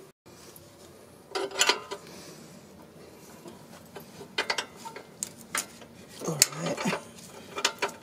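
Hand tools clinking and scraping on the front stabilizer link nut as a wrench and hex key are fitted to undo it. Scattered short metal clinks, a few at a time, with a busier cluster near the end.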